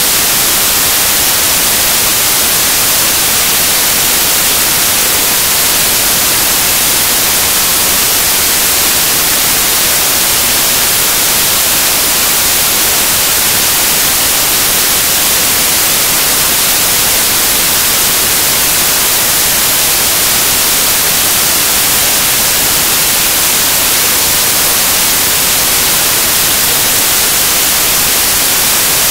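Loud, steady hiss of static, even and unchanging, brighter in the high end.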